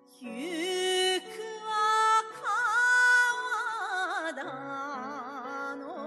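Background music: a singer holding long, wavering notes with heavy vibrato over sustained instrumental accompaniment.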